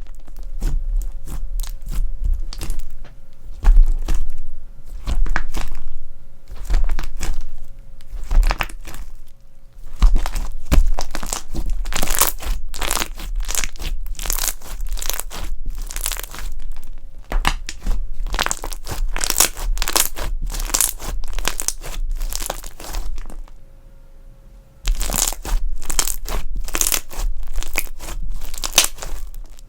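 Crunchy slime being squeezed and stretched by hand: a dense, irregular run of crackles and crunches, with a short lull about three-quarters of the way through.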